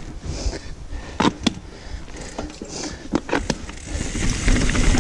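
Mountain bike rolling down a dirt forest trail, with a few sharp knocks and clatters from the bike over bumps. A louder rushing noise builds near the end as the bike picks up speed.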